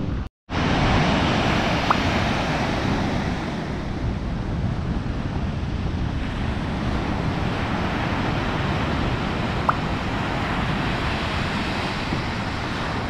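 Steady rush of surf on a sandy shore, mixed with wind buffeting the microphone.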